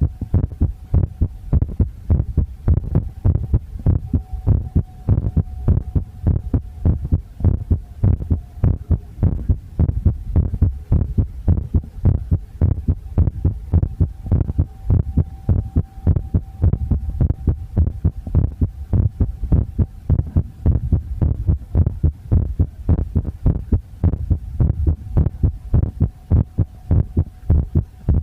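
Heartbeat in a steady, even rhythm of low thuds, about two or three a second, under a faint steady hum.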